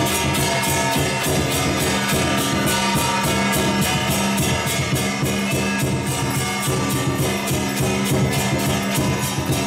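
Lion dance accompaniment: percussion with clashing cymbals struck in a fast, even beat over steady ringing tones.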